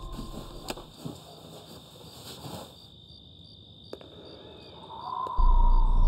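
Quiet night ambience with faint crickets and a few soft knocks, then about five seconds in a loud, low music drone comes in.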